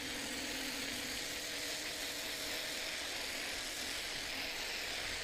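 Steady, even background hum with a faint drone, level throughout, with no distinct knocks or spray.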